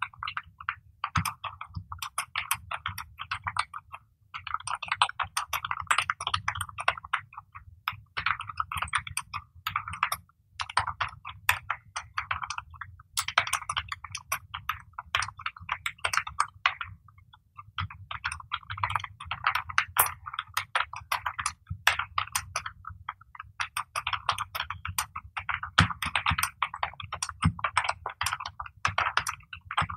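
Fast touch typing on a full-size computer keyboard: a quick, uneven stream of key clicks in short runs of words with brief pauses between, at about 64 words per minute. A faint steady low hum runs underneath.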